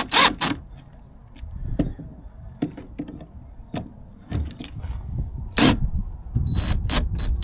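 Screws being driven into the kayak's plastic hull: a series of separate scraping, creaking strokes with handling knocks between them.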